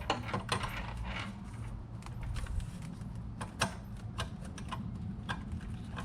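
Metal hand tools clicking and clinking as wrenches are handled and tried on a fitting: irregular light metallic clicks and taps, a sharper knock about three and a half seconds in, over a steady low hum.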